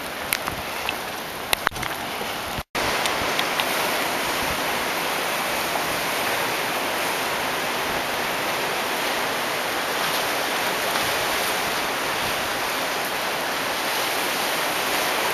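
Surf on a rocky shore, a steady even rush of water noise. The sound drops out for an instant a little under three seconds in, with a few light clicks before that.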